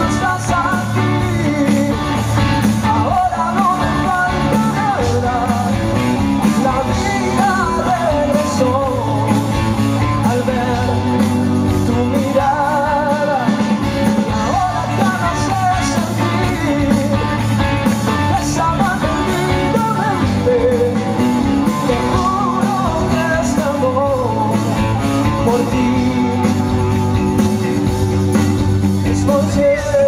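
Live pop-rock song played through a PA: a male lead vocal sings over guitar and a full band backing.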